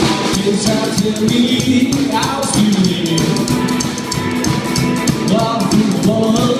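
Live rockabilly band playing: electric guitar, upright double bass and drum kit, with the drums coming in right at the start on a steady beat of cymbal strokes.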